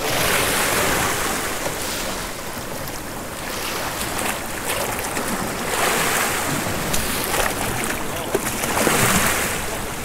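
Sea swell surging and breaking against a rock ledge, three washes of surf rising and falling, the loudest near the end.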